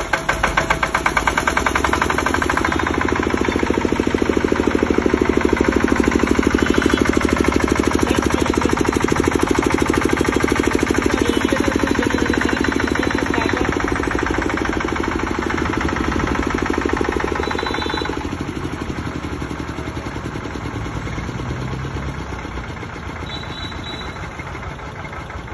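10 kVA single-cylinder diesel generator set with a radiator, running at a steady speed with a rapid, even beat of firing strokes. It drops in level about three-quarters of the way through.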